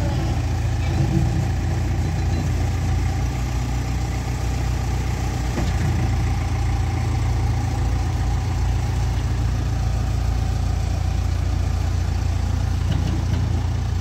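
JCB 3DX backhoe loader's diesel engine running steadily at low revs.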